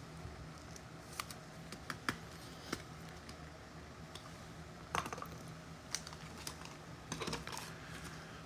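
Trading cards being handled: scattered light clicks and taps, about ten spread unevenly with a small cluster near the end, over a faint steady hum.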